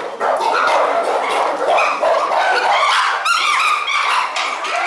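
A group of chimpanzees screaming all at once in a fight, many loud overlapping calls with a run of sharp rising shrieks about three seconds in.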